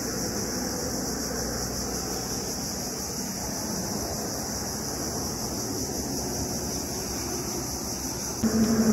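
Steady outdoor noise with a fluctuating low rumble of wind on the microphone and a constant high hiss. About eight and a half seconds in, a louder low hum starts and carries on.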